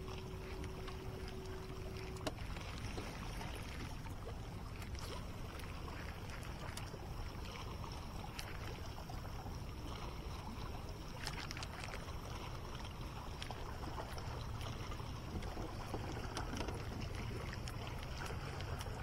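A fishing boat on the water: a low steady hum, with a thin steady tone for about the first two seconds and scattered faint clicks.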